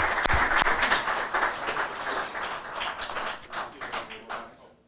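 Applause from a room of people, loud at first, then thinning out and dying away near the end.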